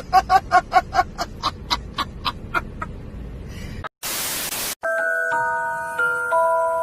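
A man laughing in a rapid run of 'ha' bursts, about five a second, that slow down and fade over about four seconds. Then a short burst of static hiss, and a glockenspiel-like mallet melody starts.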